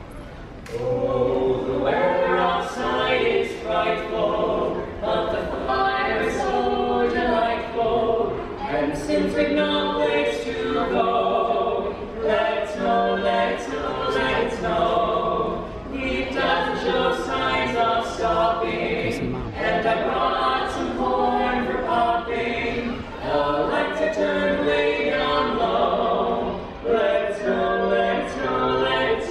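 A group of carolers singing a Christmas carol a cappella, starting about a second in.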